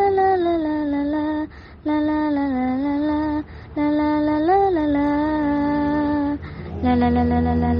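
A woman singing a slow wordless melody of long held notes with gentle slides between them, in short phrases with brief breaths between, over a faint steady low hum.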